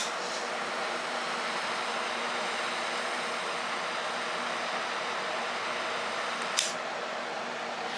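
Steady hiss of rain, with a sharp click right at the start and another about six and a half seconds in.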